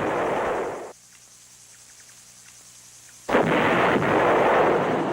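Artillery fire: a loud blast that cuts off about a second in, then after a quieter gap a second sudden blast about three seconds in that keeps rumbling.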